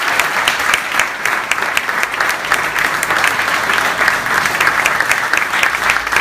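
A large audience applauding steadily, many hands clapping together without a break.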